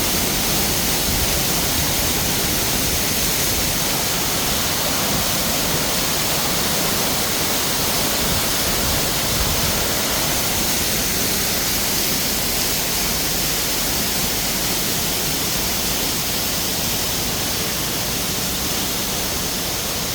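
Steady, loud rush of falling water, even across all pitches.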